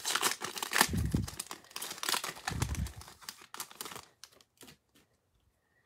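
Foil wrapper of a trading-card pack crinkling and tearing as it is opened, with two dull bumps about a second and two and a half seconds in. The rustle then thins to a few light clicks of the cards being handled and stops near the end.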